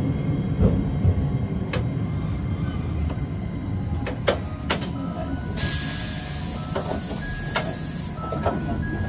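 City tram running along street track: a steady low rumble of wheels and running gear, with scattered sharp clicks. A high hiss sets in about halfway through and stops suddenly about three seconds later.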